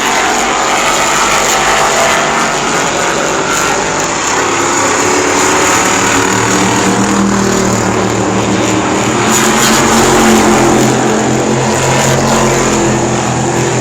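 A field of short-track stock cars racing on an asphalt oval, several engines running hard at once and swelling as the pack goes by, loudest about ten seconds in.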